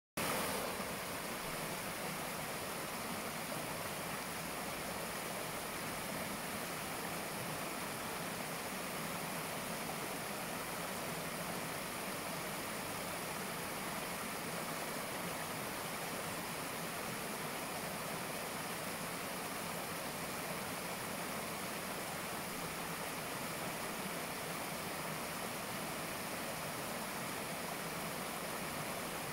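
Small shallow stream pouring over a low cascade of rocks: a steady, even rush and splash of water.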